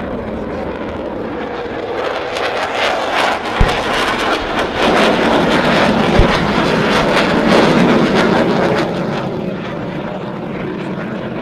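Military aircraft flying past during an air display. Its engine noise swells from about two seconds in, is loudest in the middle and fades away well before the end, with two brief low thumps along the way.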